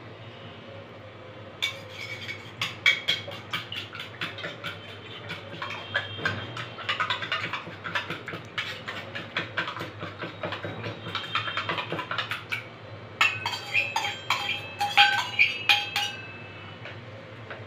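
Metal spoon beating eggs, rapid clinking and tapping against the bowls with a short metallic ring, starting about a second and a half in and briefly pausing near the middle of the run.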